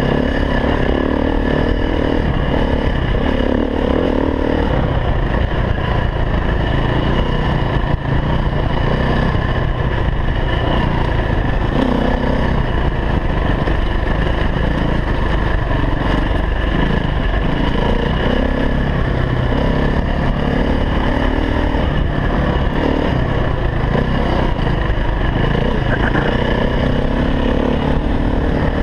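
KTM 350 EXC-F enduro motorcycle's single-cylinder four-stroke engine being ridden hard, its revs rising and falling continuously with the throttle.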